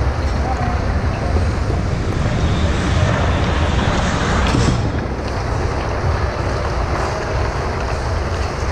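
Ice-rink ambience during a hockey game: a steady rushing noise with a strong low rumble and no distinct events.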